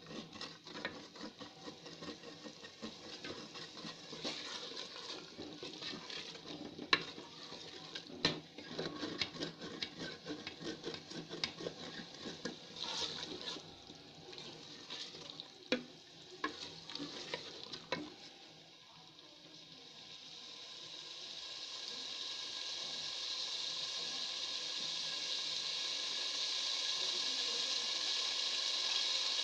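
Wooden spoon stirring potatoes and peas in masala in a metal pot, scraping and knocking against the pot. Near the end the stirring stops and a steady sizzling hiss from the cooking curry builds up.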